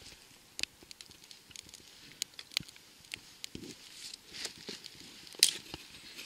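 Small twig fire crackling as it catches, with scattered irregular sharp crackles. It is burning somewhat green wood.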